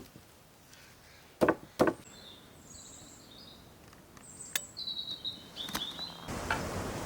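Two sharp knocks in quick succession about a second and a half in, then small birds chirping in short high calls. Near the end a steady rush of noise comes in suddenly.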